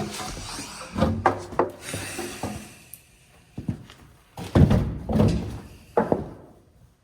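A series of irregular knocks, bumps and rubbing sounds, with the heaviest bumps about four and a half seconds in.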